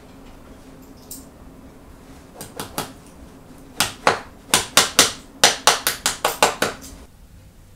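Shoemaker's hammer tapping on a shoe held on the lap: a few light taps, then a quick run of about a dozen sharp blows, about four or five a second, stopping shortly before the end.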